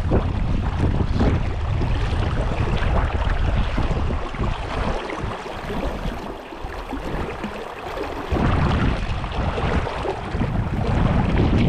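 Wind buffeting the microphone over the steady rush of flowing brook water. The low rumble of the wind drops away for a few seconds around the middle, then returns.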